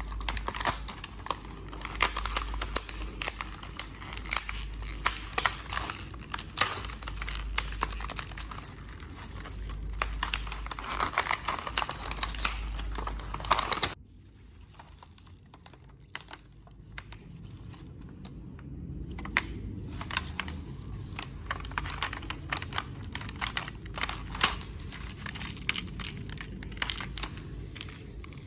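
Packaging and a sewing kit being handled while unboxing: crinkling and tearing, with many small clicks and taps as items are handled. A low hum lies under the first half and stops abruptly about halfway through, after which the taps go on more quietly.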